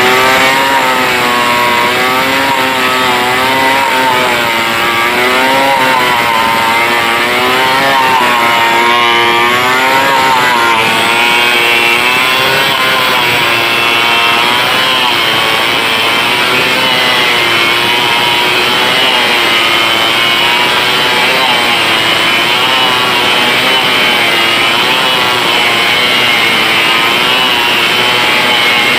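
Stihl 070 two-stroke chainsaw running at high revs while cutting through a big log, its engine pitch wavering up and down under load. The sound gets brighter and harsher about eleven seconds in.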